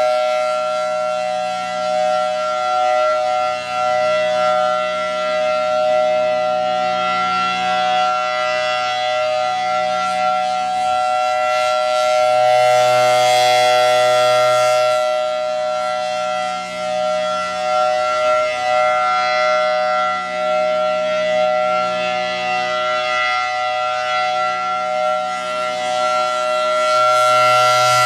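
Federal Signal Thunderbolt 1003 outdoor warning siren sounding a steady full-alert tone at one held pitch. It is very loud, and it swells and fades as the rotating horn sweeps past, loudest about halfway through and again near the end.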